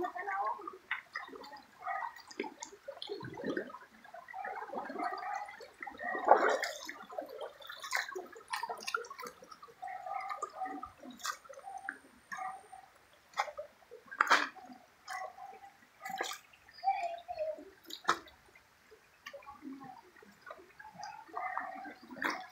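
Shallow stream trickling and gurgling over rocks, with scattered sharp clacks of loose stones underfoot.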